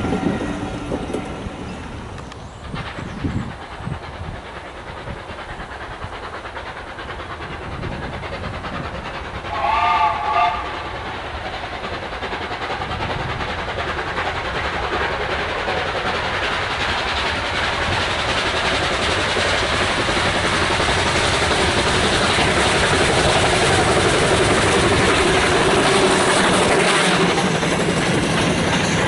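A train's last coach rolls away, fading. About ten seconds in a steam locomotive whistle sounds briefly. After that a steam-hauled coal train approaches, its rumble growing louder until the loose-coupled mineral wagons rattle and clatter past over the rail joints near the end.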